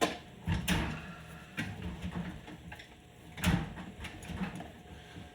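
Hand tools knocking and scraping against metal engine parts while the clutch hub's lock-washer tab is being worked on, with a few sharp knocks, the loudest about three and a half seconds in.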